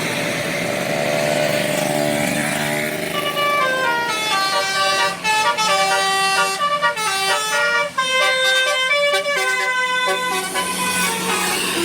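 Indonesian bus 'telolet' Basuri multi-tone horn playing a tune: a fast run of short notes stepping up and down, starting about three seconds in and stopping shortly before the end, over a steady background hiss.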